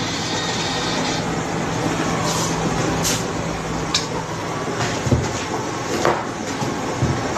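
Steady mechanical rumble and hiss with a low hum, broken by scattered knocks and clatter, about one a second.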